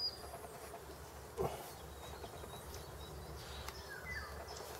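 Quiet outdoor background with a steady low hum and a few faint bird chirps, and a single short knock about a second and a half in.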